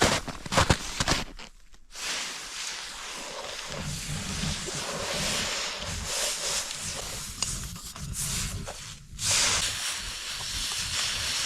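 Steady hissing as a high-carbon leaf-spring steel knife blade is hardened, heated glowing hot and quenched in snow. There are brief breaks about two seconds in and near nine seconds, and the hiss is loudest after the second break.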